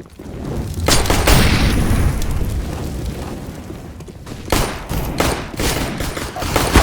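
Glock pistol firing several loud shots, one about a second in and a quicker run of shots near the end, with a long low rumble echoing between them.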